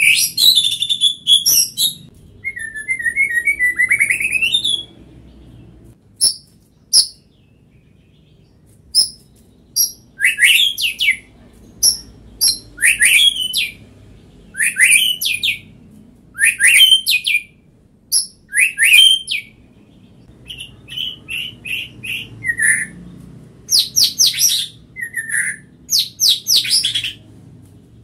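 White-rumped shama (murai batu) singing in short, varied phrases: rising whistled sweeps, sharp clicks and very high-pitched notes, repeated every second or two, with a pause of a few seconds after the first phrases.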